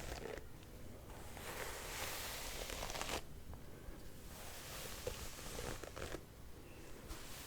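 A hairbrush drawn through hair in slow strokes, about one every three seconds. Each stroke is a scratchy, crackling swish of bristles lasting a second or two.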